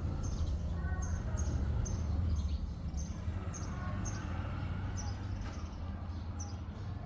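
A bird chirping over and over, short high chirps about twice a second, over a steady low rumble.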